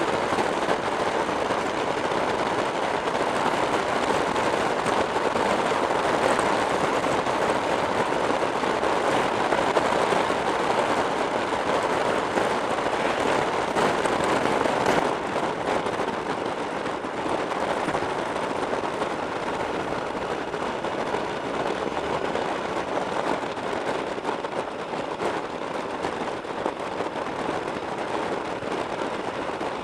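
Steady rush of wind and road noise from a motorcycle cruising along at road speed, heard from a camera mounted on the bike, with a faint crackle of wind buffeting; it eases a little about halfway through.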